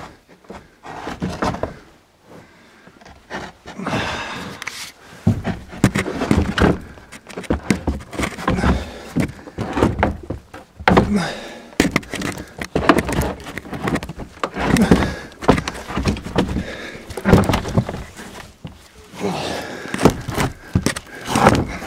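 Repeated knocks, thuds and scraping as the cover over a barn loft opening is shifted and pressed into place by hand to seal it.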